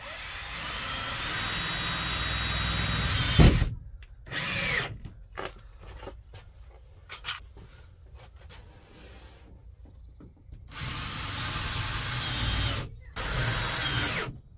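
Cordless drill driving screws up into a van's plastic ceiling panel: one long run of about three and a half seconds that ends in a loud knock, a short burst soon after, then two more runs near the end.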